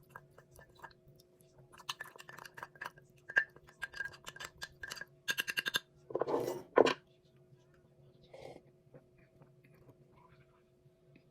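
Kitchenware clinking: a run of quick light taps with a ringing tone, then a burst of rapid clicks, then a louder dull knock and a sharp clack a little past the middle, over a faint steady hum.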